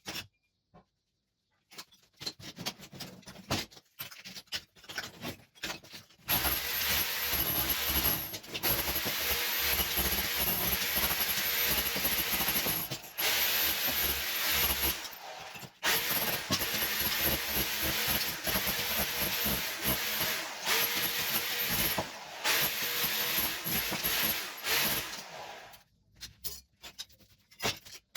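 A power tool removing old wall tiles: a few scattered knocks, then about six seconds in the tool starts and runs loud, with a high whine and a few short breaks, until it stops near the end. A few more knocks follow.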